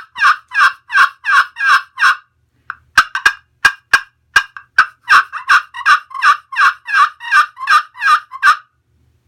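Slate turkey pot call played with a tigerwood striker, giving a run of yelps about three a second. After a short pause, a few sharp clucks come about three seconds in. Then a second, faster run of yelps stops shortly before the end.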